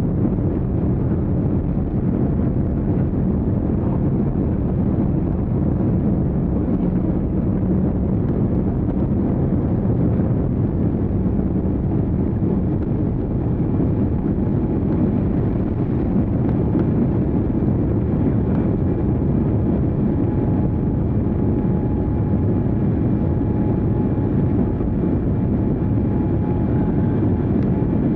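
Steady low engine drone and rushing noise inside a moving vehicle, unchanging throughout.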